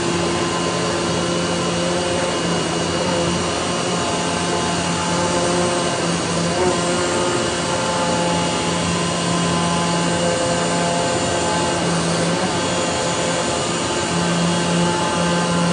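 Automatic flatbed cutting machine cutting medical gown material: the steady drone of its vacuum hold-down blower, with a hum that swells and fades as the cutting head travels.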